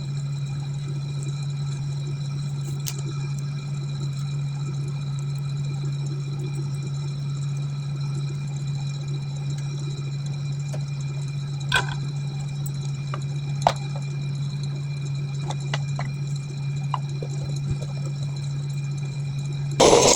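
A steady low hum with a few faint clicks about halfway through.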